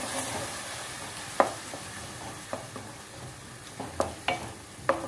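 Cauliflower and potato in masala sizzling as they fry in a metal kadai, stirred with a wooden spatula. Several sharp knocks of the spatula against the pan sound through the steady frying hiss.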